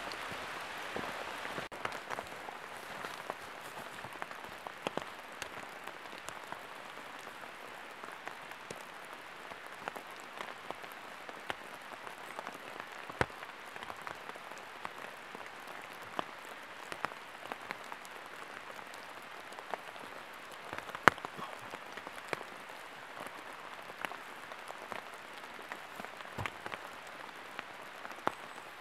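Steady rain pattering on forest foliage, with scattered sharper drops landing close by; one drop about two-thirds of the way through is the loudest.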